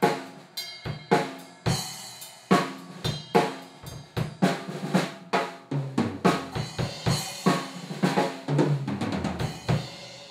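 Pearl drum kit played, a steady beat of bass drum, snare and cymbal strikes. A run of lower-pitched drum hits comes over the last few seconds, then the playing stops near the end and the ringing fades.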